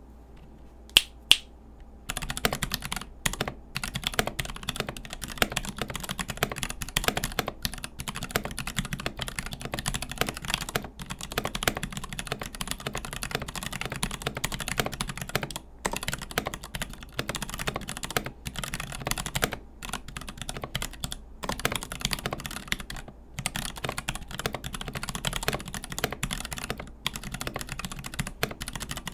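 Continuous fast typing on a Melody96 mechanical keyboard with Gateron Brown tactile switches, a brass plate and thick PBT Cherry-profile keycaps, the board resting on a folded towel on a bare table. Two sharp, louder clicks come about a second in before the typing starts, and it pauses briefly a few times.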